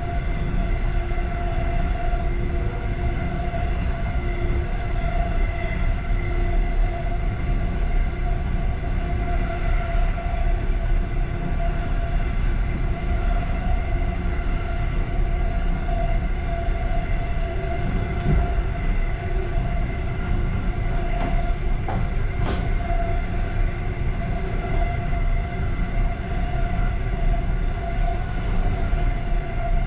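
Passenger train running steadily at speed, heard from inside its last car: a continuous low rumble with a steady hum on top and a couple of faint clicks about two-thirds of the way through.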